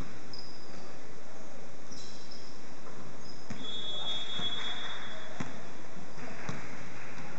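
A basketball being dribbled on a hardwood gym floor, with bounces about once a second through the second half, and sneakers squeaking on the court, all echoing in a large hall.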